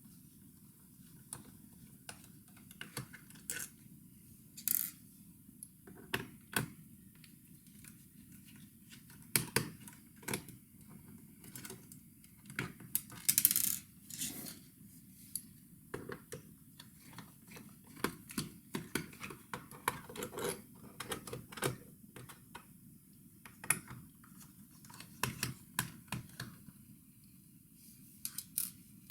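Irregular clicks, taps and small clinks of small hard parts being handled while a laptop is taken apart, such as tiny screws set down or dropped on a hard surface and plastic parts knocking, with a short scraping sound about 13 seconds in.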